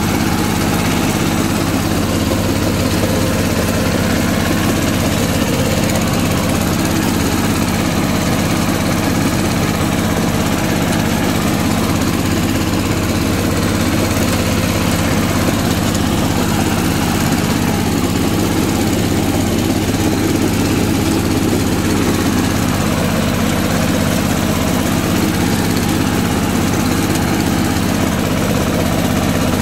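Water-cooled single-cylinder diesel engine of a two-wheel walking tractor (power tiller) running steadily.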